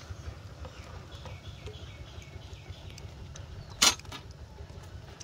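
Outdoor background with a steady low rumble and a run of faint high chirps, broken about four seconds in by a single sharp clack, the loudest sound.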